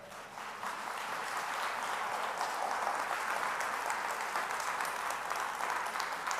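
Congregation applauding: a crowd of hands clapping that swells over the first second, then holds steady.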